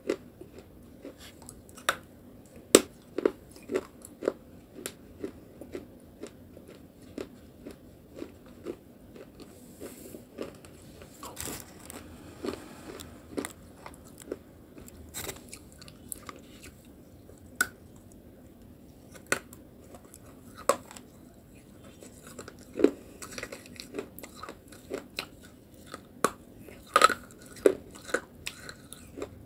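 A person biting and chewing a lump of dry clay: irregular sharp crunches, a few of them much louder bites.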